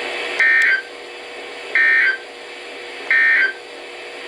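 Emergency Alert System end-of-message signal: three short identical bursts of warbling digital data tones, about a second and a half apart, over steady receiver hiss, marking the end of the tornado warning broadcast.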